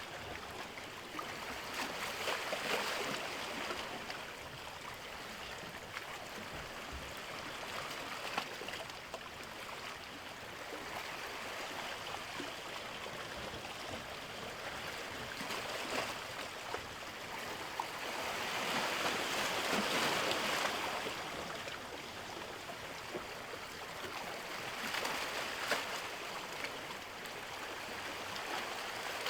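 Sea water washing and fizzing at the shore, the wash swelling and easing every few seconds as small waves come in.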